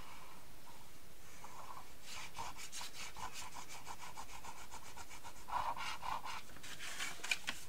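The nozzle of a plastic liquid-glue bottle rubbing along cardstock as glue lines are squeezed out, in quick repeated strokes, with a few sharp clicks near the end.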